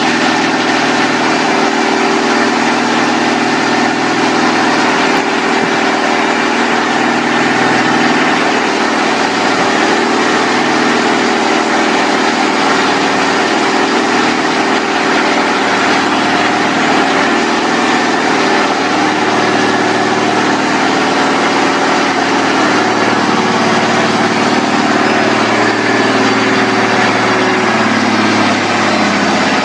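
Cummins diesel engine running steadily on a test stand, its pitch wavering slightly near the end.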